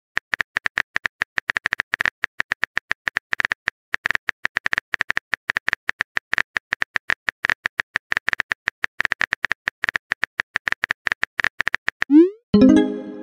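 Simulated phone keyboard typing sound effect: rapid, irregular keypress clicks, several a second, as a chat message is typed letter by letter. Near the end the clicks stop, followed by a rising swoosh and a short pitched pop, the message-sent sound.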